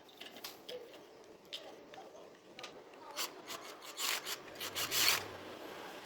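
Irregular rubbing and scraping strokes of hand work on a small part, like filing or sanding. The strokes come closer together and loudest about four to five seconds in.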